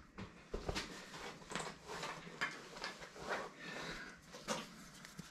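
Faint scattered clicks and light knocks, with no machine running.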